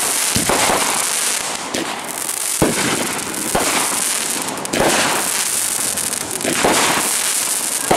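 Consumer fireworks going off: a continuous hissing, crackling spray of fountains and crackle stars, broken by about six sharp bangs of bursting shots.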